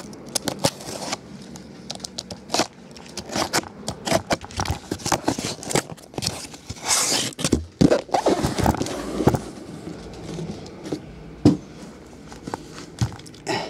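A taped cardboard case of trading-card hobby boxes being opened and unpacked: the cardboard scrapes, the plastic wrap crinkles and rustles, and the shrink-wrapped boxes knock lightly as they are pulled out. A longer rustle comes about seven seconds in.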